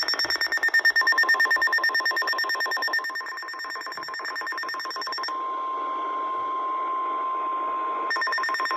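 NOAA Weather Radio warning alarm, a steady single-pitch tone, sounding through a weather alert radio together with the receiver's own rapid electronic alarm beeping. The beeping stops about five seconds in, leaving the tone alone, and comes back near the end. The alarm signals that a warning, here a flash flood warning, is about to be read.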